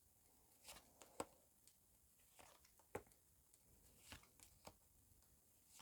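Faint, scattered short clicks and snaps of tarot cards being handled and laid down on a table, about half a dozen over a few seconds, with near silence between them.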